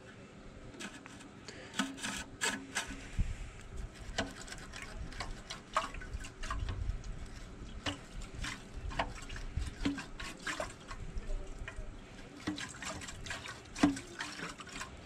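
Muriatic acid sloshing inside a small rusty metal fuel tank as the tank is tilted and rocked by hand, with scattered clicks and knocks of the tank being handled; the acid is being worked around to dissolve the rust buildup inside.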